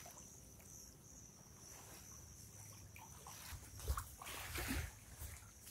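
Faint outdoor background, then from about three and a half seconds in a few soft footsteps and rustling on a sandy path, spaced like a walking pace.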